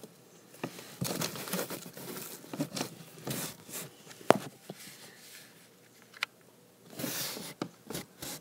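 Rustling and scraping of clothing and a handheld phone against the inside of a cardboard box, in irregular spells with a couple of sharp clicks, the first about four seconds in.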